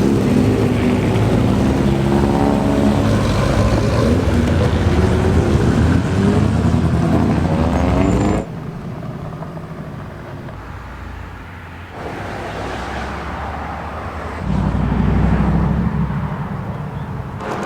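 Classic car engines running, loud at first with a pitch that rises and falls, then dropping suddenly to quieter engine sound a little under halfway through. A low rumble swells near the end.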